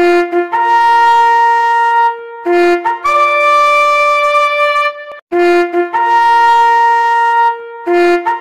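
Brass horns blowing a ceremonial call in long, steady notes. Each phrase starts on a short low note and steps up to a long held note, the second phrase ending higher than the first, and the whole call repeats.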